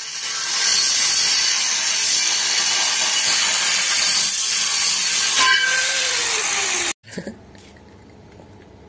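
Handheld angle grinder with a thin cut-off disc cutting through stainless steel tube: a loud, steady hissing screech of the disc in the metal. The screech stops abruptly about seven seconds in, leaving a quiet stretch with a few small handling clicks.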